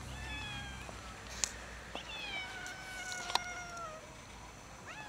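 A black-and-white stray cat meowing: a short meow at the start, a long meow falling in pitch from about two seconds in, and another meow beginning near the end. Two sharp clicks fall between the meows.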